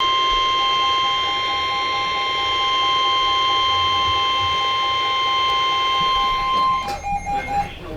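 NOAA Weather Radio's 1050 Hz warning alarm tone, the signal that a warning broadcast follows. It is a loud, steady, high-pitched tone that cuts off suddenly about seven seconds in. Beneath it a second beep, a little lower in pitch, pulses rapidly and stops just under a second later.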